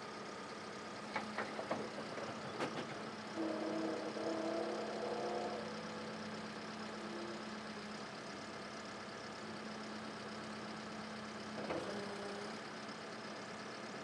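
Case 580N backhoe loader's diesel engine idling steadily. Over it come a few sharp metallic clanks in the first few seconds and one more near the end, and a brief hydraulic whine for about two seconds a little after the first clanks, as the machine works its hydraulics.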